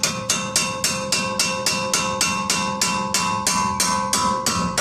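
Rapid, evenly spaced hammer blows on the steering knuckle of a VW Golf/Jetta Mk5, about four a second, each leaving a metallic ring. The knuckle is being struck to drive it down onto the new front shock absorber so the shock seats in its clamp.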